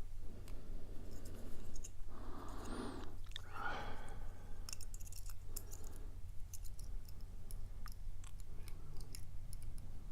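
A lock pick and tension wrench working inside a steel padlock's keyway, making many small scattered metallic clicks and scrapes as the pins are probed. The lock is rough inside and gives little feedback. A steady low hum runs underneath.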